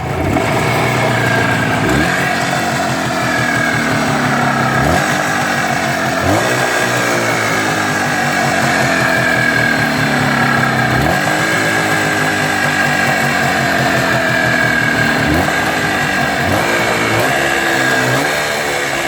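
An engine idling, revved up briefly and let fall back about eight times, with a higher whine that drifts slowly in pitch over the running engine. The recording was made to capture an extraneous noise.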